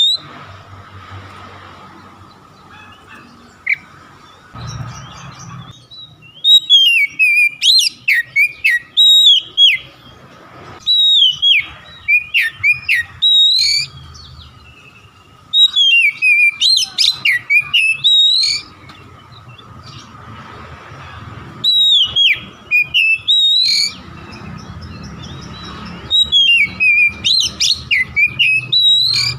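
Oriental magpie-robin (kacer) singing loud, varied whistled phrases that slide quickly up and down, in five bursts of a few seconds each separated by short pauses.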